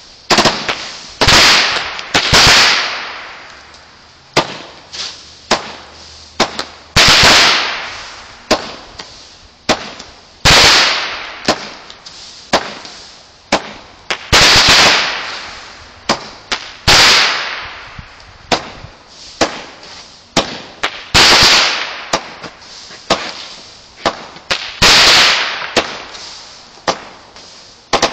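Consumer aerial fireworks going off in a continuous series: a big bang every three to four seconds with smaller pops between, each big bang trailing off over a second or two.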